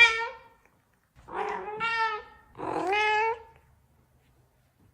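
Domestic cat meowing: two long meows one after the other, starting about a second in.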